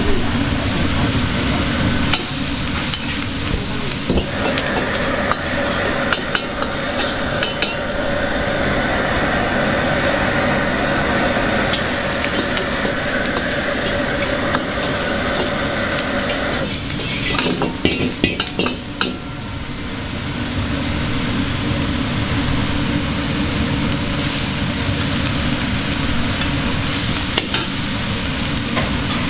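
Egg fried rice sizzling in a hot wok as it is stir-fried, with a metal ladle or spatula scraping and clanking against the pan, the clanks thickest a little past halfway.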